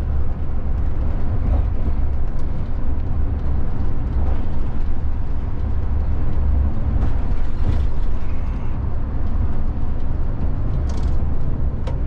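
VDL Futura coach driving, heard from the driver's seat: a steady low rumble of engine and road noise, with a few light clicks in the second half.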